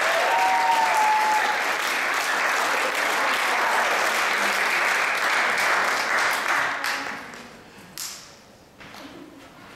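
Audience applauding in a hall, with a couple of whoops near the start; the clapping dies away about seven to eight seconds in.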